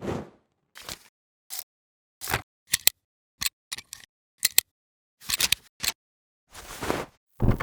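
Old film camera sound effects: a string of about a dozen short mechanical clicks and brief whirring bursts, each cut off cleanly into silence, with a longer, fuller burst near the end.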